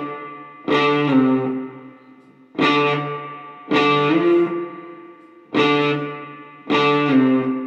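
Song intro: electric guitar chords played with an effects unit, struck about every second and a bit, each one left ringing and fading, six in all.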